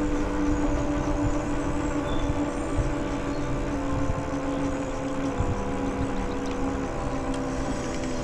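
Wind rushing and buffeting on the microphone of a bicycle-mounted camera while riding, a steady low rumble with gusts. Underneath run steady humming tones that change pitch a few times.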